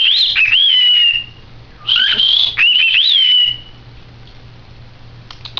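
Cockatiel whistling two short warbling phrases, high and clear, the pitch gliding up and down, with a pause of under a second between them.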